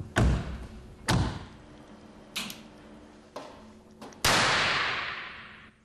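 Artificial lightning from a high-voltage impulse generator: a series of five sharp electrical cracks about a second apart, each echoing off the lab hall, the loudest about four seconds in with a long ringing decay. A faint steady hum runs underneath.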